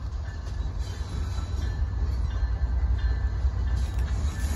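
Steady low rumble of CN diesel-electric locomotives moving a freight train slowly backward along the track.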